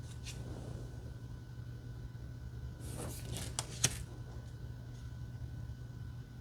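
Oracle cards being handled: a short brushing slide of card on card about three seconds in, ending in a light sharp click, over a steady low hum.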